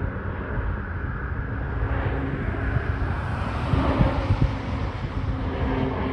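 Beech 1900C twin turboprop climbing out after takeoff, its engines and propellers running at climb power and growing louder as it comes nearly overhead, loudest about two-thirds of the way in. Wind rumbles on the microphone throughout.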